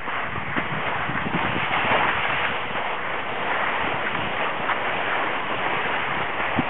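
Skis sliding and scraping over packed snow, a steady hiss, with wind on the microphone.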